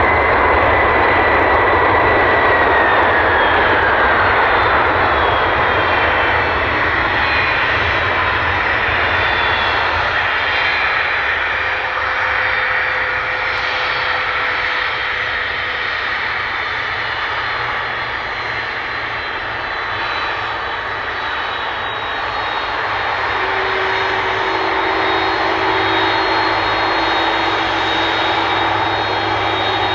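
Airbus Beluga A300-600ST's twin General Electric CF6-80C2 turbofans running loud as the jet rolls along the runway after landing. A high whine falls in pitch over the first few seconds as the engines spool down, then a steady jet rumble goes on, easing and building again later.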